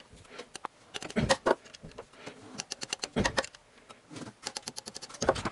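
Ratchet wrench clicking in quick runs while an alternator mounting bolt is tightened, securing the alternator after the drive belt has been tensioned. There are a few duller knocks of the tool among the clicks.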